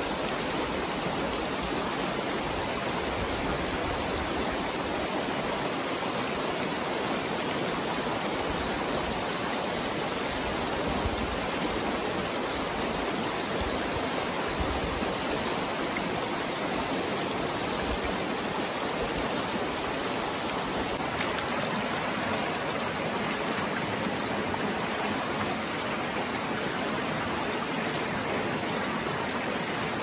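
Shallow, rocky river rushing steadily over small rapids.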